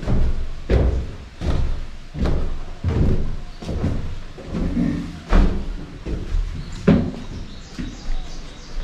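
Footsteps climbing a wooden staircase and walking on: heavy thuds on the wooden treads about one every three-quarters of a second. Faint bird chirps come in near the end.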